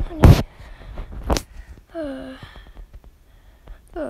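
A person crying in character: two sharp, loud sobbing gasps close to the microphone, then short whimpers that fall in pitch.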